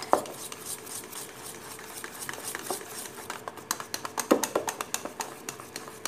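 Wire whisk beating cake batter in a steel bowl: rapid, irregular clicks and taps of the whisk against the metal, with a louder knock near the start and another about four seconds in.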